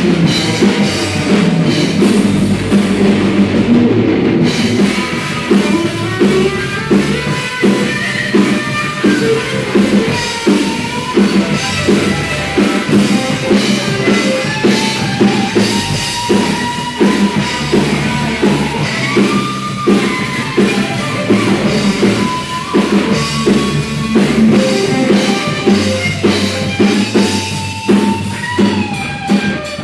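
Live rock band playing an instrumental passage: electric lead guitar with bent, gliding notes over a steady drum-kit beat.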